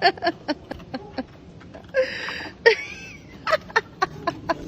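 A dog hauling a stick up to its owner: a quick, irregular run of clicks and knocks as the stick and the dog's feet hit the surface.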